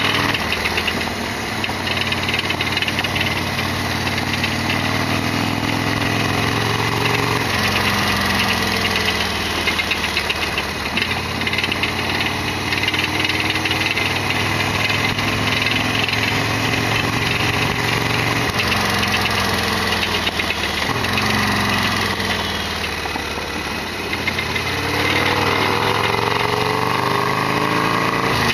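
Harley-Davidson Sportster XL1200 V-twin engine running under way, its pitch rising and falling several times as the revs build and ease off. The owner describes this bike as making a loud abnormal noise.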